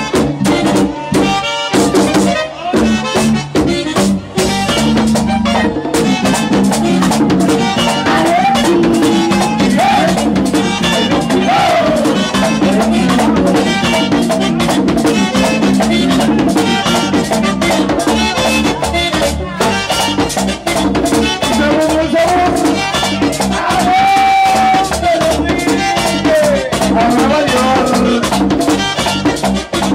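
Latin dance music with a drum kit and maracas keeping a steady beat under a gliding melody line.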